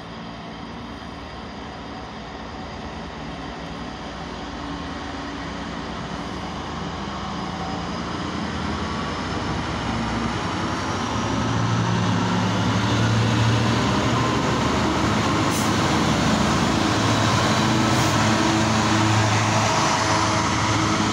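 Class 66 diesel-electric freight locomotive, with its two-stroke EMD V12 engine, hauling a container train past. The engine grows steadily louder as it approaches, then a steady rumble continues as the container wagons roll by.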